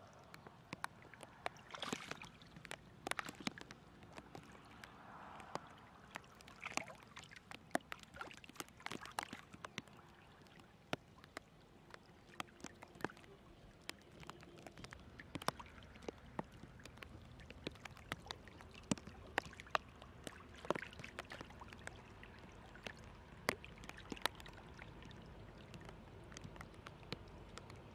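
Shallow muddy water flowing and gurgling along a channel past a mosquito-net fish trap, with frequent small sharp splashes throughout.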